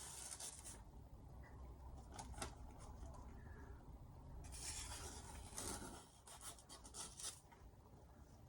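Freshly sharpened carbon-steel kitchen knife slicing through paper to test the edge: two hissing cuts, one at the start and a longer one around the middle, with light rustles and ticks of the paper between them.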